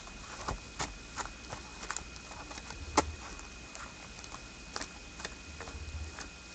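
A deck of cards being shuffled and handled: scattered light clicks and taps of cards, with one sharper knock about three seconds in.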